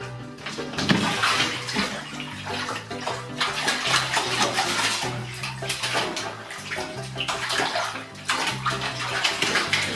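Water splashing and sloshing in a bathtub, in uneven bursts that start about half a second in.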